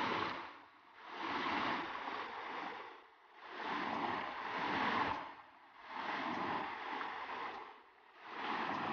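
Stream water running over a low stone weir, a steady rush that swells and fades about every two and a half seconds.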